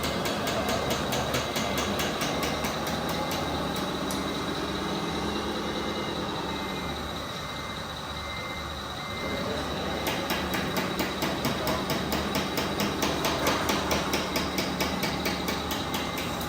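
RC model construction machines running: a fast clattering engine-like rhythm of about five ticks a second with a steady high whine. The clatter falls away for several seconds in the middle, while a repeating beep sounds, then picks up again.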